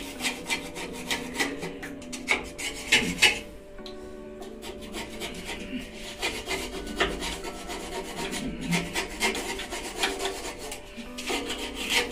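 Hand tool scraping caked chilli powder off the beaters and chamber walls of a masala pulverizer grinder that is not running. The scraping comes in quick repeated strokes, with a short pause about four seconds in.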